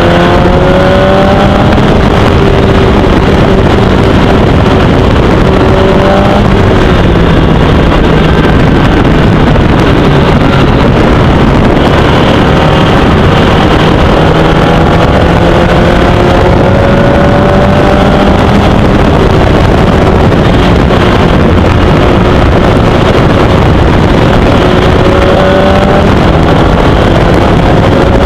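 Formula Easter single-seater racing car's engine heard from the cockpit at racing speed. Its pitch climbs under acceleration three times and holds steadier in between, over a loud rushing noise.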